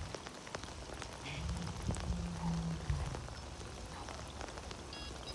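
Steady rain pattering on a lake surface, an even hiss with a few faint ticks of drops. A faint low hum runs for a couple of seconds about a second in.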